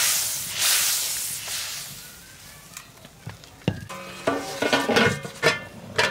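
Rohu fish curry sizzling in the pan just after coconut milk is poured in for the gravy, with stirring; the sizzle is loudest at the start and dies down. From a little past halfway to near the end, a pitched sound with several tones joins it, along with sharp clicks.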